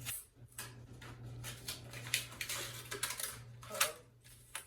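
Paper rustling and crinkling in short, irregular bursts as a child tears into a wrapped birthday present.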